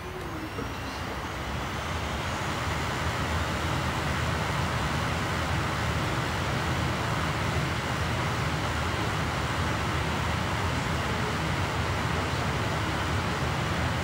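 Laptop optical drive spinning a CD at high speed while burning it: a steady whirring rush of disc and motor noise. It grows louder over the first two seconds or so as the disc speeds up, then holds steady.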